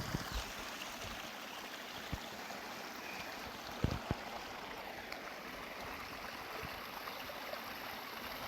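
Steady, even rushing noise with a few soft knocks, the loudest pair about four seconds in.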